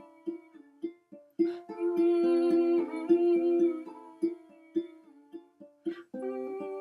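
Ukulele playing chords in an instrumental break between sung lines, plucked and strummed in a steady rhythm with notes left ringing.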